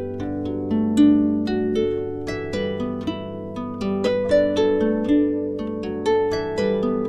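Instrumental break in a song: a quick run of plucked string notes, each ringing and fading, over a low steady tone.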